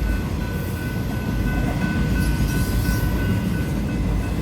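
Union Pacific intermodal freight train rolling past a level crossing: a steady low rumble of the train on the rails, with a faint high steady tone held throughout.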